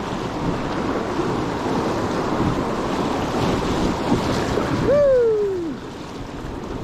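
Steady wind buffeting the microphone with water noise around a small fishing boat. About five seconds in, a single short tone slides downward and stops.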